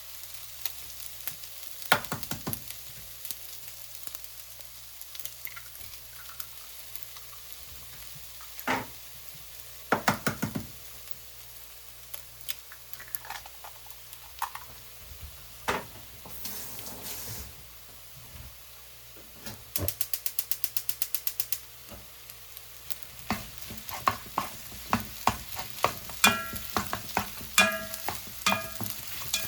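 Fried rice sizzling in a hot pan as a utensil stirs and scrapes it, with scattered sharp taps against the pan. About twenty seconds in comes a quick run of about a dozen even taps, and near the end the clinks come thicker and faster.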